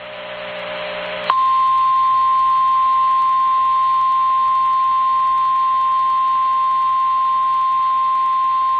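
Radio hiss swelling for about a second, then a single steady high tone that holds without a break: the NOAA Weather Radio 1050 Hz warning alarm tone that announces a tornado warning broadcast.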